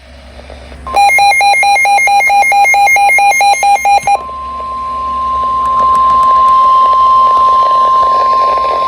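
Emergency Alert System activation as broadcast over NOAA Weather Radio for a severe thunderstorm warning: about three seconds of rapidly alternating, buzzy electronic data tones (the SAME header), then the steady single-pitch 1050 Hz warning alarm tone starting about four seconds in and holding.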